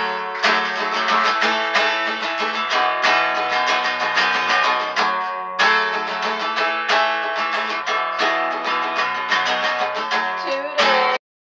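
Background music led by strummed acoustic guitar, cutting off abruptly near the end.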